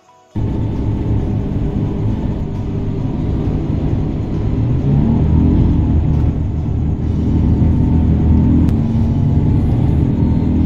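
Engine and road rumble of a moving road vehicle, heard from on board while it drives along. The engine note rises briefly about halfway through.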